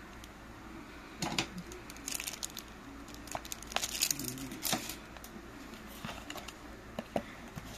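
Packaging crinkling and rustling as it is handled, with scattered small clicks and taps.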